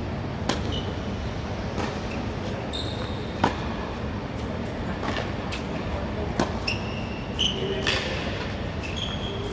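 Tennis rally: a serve and then racket strokes on the ball, six sharp hits about a second and a half apart, the loudest about three and a half seconds in, over a steady background hum.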